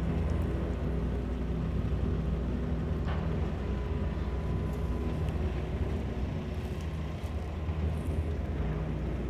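A vehicle driving, heard from inside the cabin: steady engine and road rumble, with the engine hum fading in and out and a faint steady high whine.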